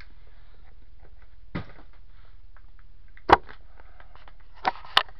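Sharp snaps and clicks from the packaging of a paper-wrapped parcel being worked open. There is a faint one about a second and a half in, the loudest just after three seconds, and two more close together near the end.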